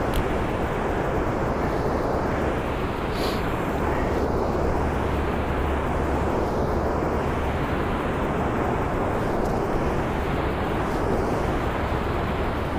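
Steady rushing roar of river water pouring through a dam's sluice gates.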